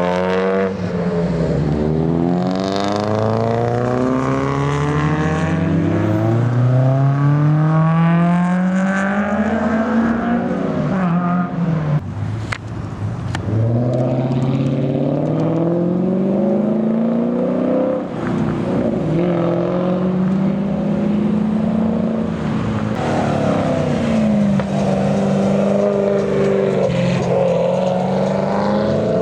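Car engines accelerating away one after another, revving up through the gears: the pitch climbs and drops sharply at each shift, several times over, with more than one engine heard at once.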